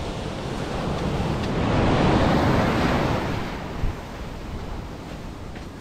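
Ocean surf on a sandy beach: a wave breaks and washes up the shore, swelling to its loudest about two seconds in and then ebbing away. Wind buffets the microphone.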